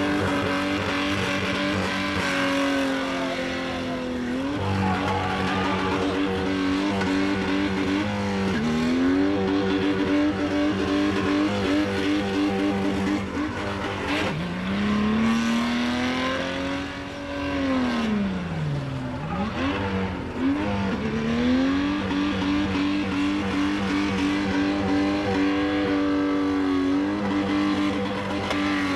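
A short-wheelbase 4x4's engine held at high revs while it drifts in circles, tyres spinning and squealing. The revs drop and climb again a few times, most deeply about two thirds of the way through.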